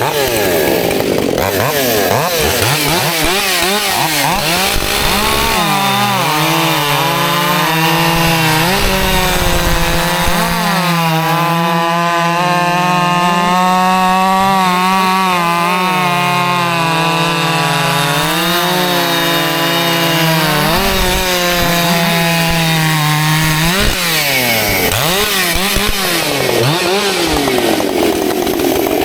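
Two-stroke Husqvarna 550 XP Mark II chainsaw revving up and down, then held under load in a cut for about eighteen seconds. Its pitch sags and wavers slightly as the chain bites, and it revs freely up and down again once the cut is through.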